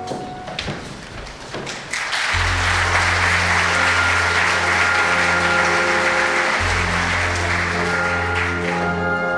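Audience applauding at the end of a stage musical number. A few scattered claps swell into full applause about two seconds in, over steady low sustained notes of the accompaniment.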